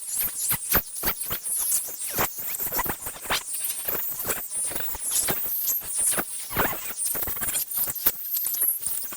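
Irregular scratching and squeaking with light clicks from hand cleaning of small ratchet parts: many short scrapes in quick succession with high squeaks among them.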